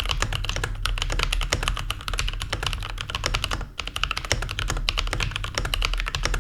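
Fast typing on a Keychron K8 mechanical keyboard with Cherry MX Brown switches: a dense run of key clicks, with a short break a little past halfway.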